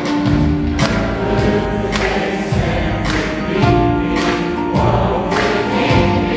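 Live band performing a pop song: group vocals over piano, violin, bass guitar and drums, with regular drum and cymbal hits.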